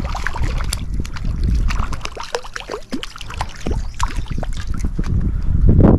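Shallow water splashing and sloshing as a hooked yellowfin whiting is drawn in at the surface and grabbed by hand. There are many small sharp splashes and drips over a low rumble.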